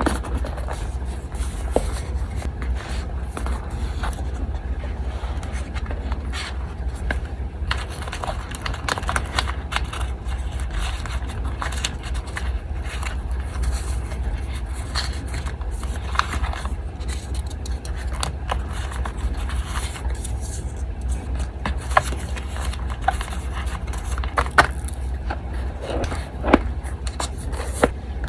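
Paper being handled, rubbed and scraped during collage-making, with scattered small clicks and a few sharper taps in the second half, over the steady low hum of an electric fan.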